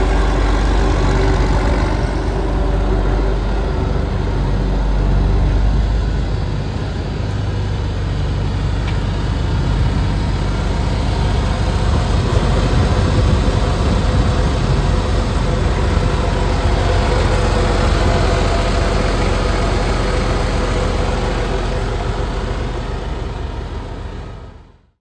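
Massey Ferguson 1135 tractor's six-cylinder diesel engine idling steadily.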